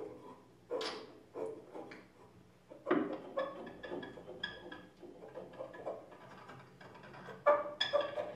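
Improvised tabletop performance: sparse clicks and knocks of small objects handled and struck. From about three seconds in they turn into a denser clatter with brief ringing tones, and a louder cluster comes near the end.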